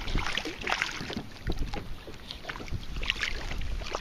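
Water lapping and splashing irregularly against a kayak's hull, with wind buffeting the microphone as a low rumble.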